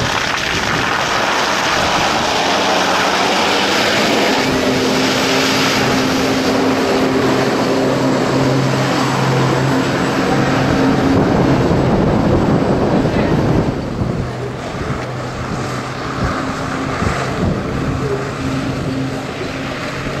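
A motorboat engine running steadily over a rush of water and wind noise on the microphone. It is loudest until about two-thirds of the way through, then drops back to a lower level.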